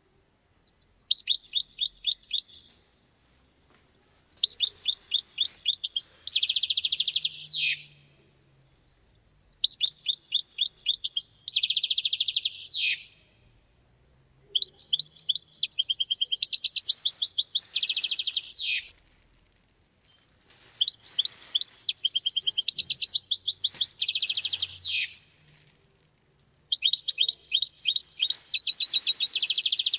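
A songbird singing the same song over and over, about six times with short pauses between. Each song is a fast run of high repeated notes that leads into a denser buzzy passage and ends in a quick sweep.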